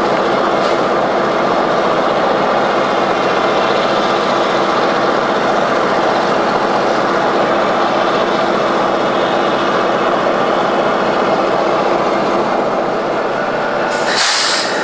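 Diesel locomotive engines running steadily with a deep, even drone. A brief hiss comes near the end.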